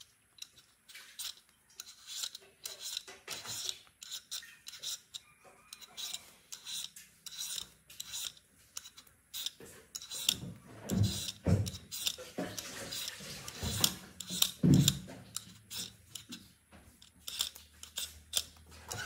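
Quick, repeated scraping and cutting strokes at an irregular pace, with a few heavier thuds about halfway through.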